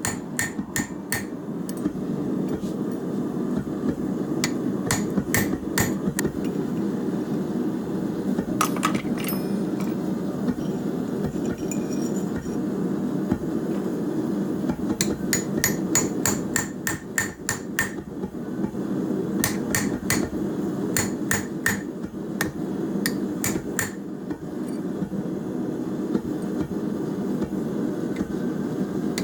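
Hammer strikes ringing on an anvil as steel is hand-forged: rapid runs of blows with short pauses between them, over a steady low rushing noise.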